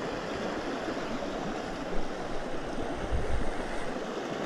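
Small mountain creek flowing over rocks: a steady rush of running water, with a couple of faint low bumps.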